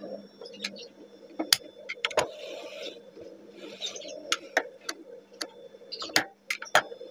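Industrial sewing machine's motor humming steadily while it is not stitching, with cloth rustling as the fabric is smoothed and a few sharp clicks, two of them close together near the end.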